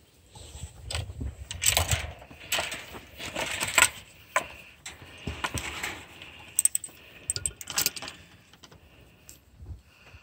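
Rustling and clicking handling noise on a phone's microphone as it is moved about, irregular and loudest through the middle, quieter near the end.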